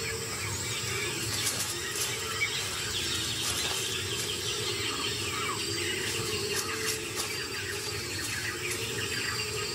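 A chorus of many birds chirping and calling, short rising and falling notes overlapping continuously, over a low held tone.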